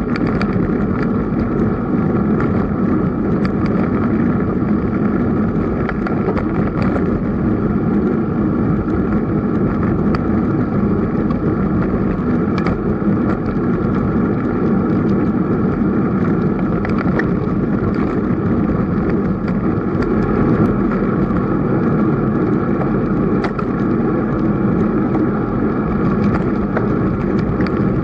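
Steady rushing ride noise of a bicycle rolling at about 25 km/h, picked up by a bike-mounted action camera: wind over the microphone and tyre noise on the paved path, with a few small clicks and rattles.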